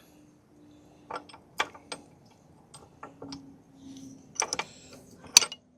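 Hand tools clicking and tapping against the motorcycle's metal rear axle and chain adjuster: a dozen or so irregular sharp metallic clicks, the loudest near the end.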